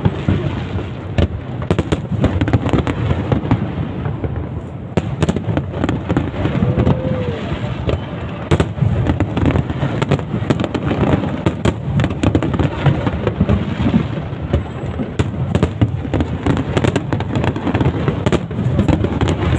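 Fireworks going off in a rapid, continuous barrage of bangs and crackles with no break.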